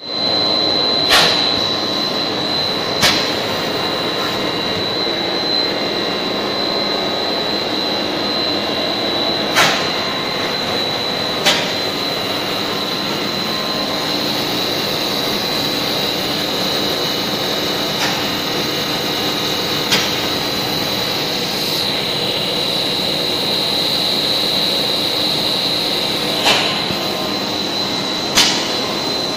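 Extruded snack-flake production line running: a steady machinery noise with a constant high whine, broken every few seconds by sharp clicks or knocks at irregular intervals.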